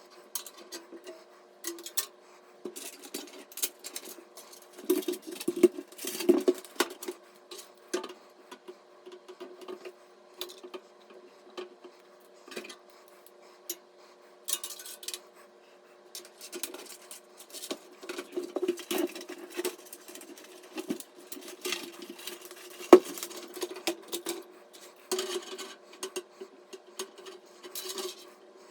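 Irregular clicks, clinks and light rattles of small hard computer parts and screws being handled and fitted during a PC build, over a steady faint hum.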